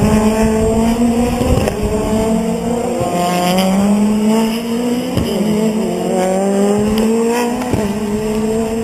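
Race car engine accelerating hard through the gears, its pitch climbing steadily and dropping back sharply at each upshift, several times over.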